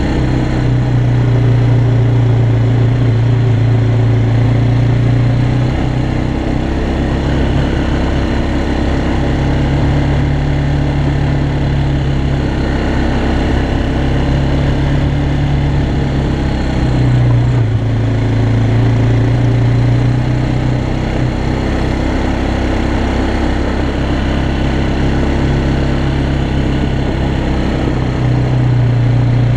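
Yamaha Bear Tracker 250 quad's single-cylinder four-stroke engine running as it climbs a gravel track. Its low note grows stronger and eases off several times.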